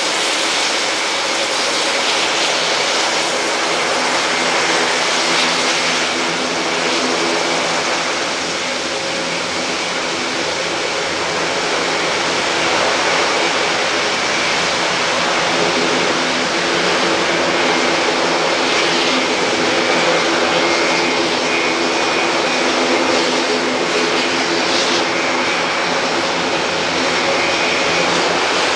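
Airbus A400M's four TP400 turboprop engines running on the ground. The eight-bladed propellers give a loud, steady drone with a thin high whine on top.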